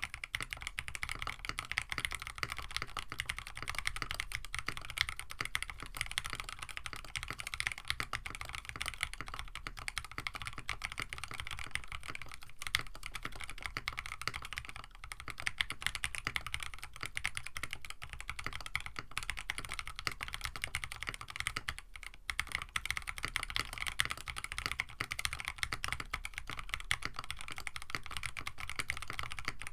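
Fast, continuous typing on a KBD67 Lite mechanical keyboard with EV-00 switches (nylon top housing, rail bottom-out) on an FR4 plate, keys clacking in a dense stream with a few brief pauses. The sound is a little muted, which the owner calls kinda dead.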